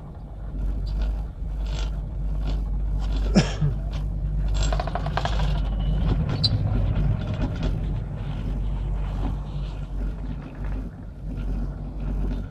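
Doppelmayr three-seat chairlift running over a support tower's sheaves: a sharp clack about three seconds in, then a rattling clatter for a second or two, over a steady low rumble.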